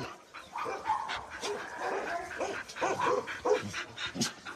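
Several dogs giving short, scattered whines and yips, with a couple of sharp clicks.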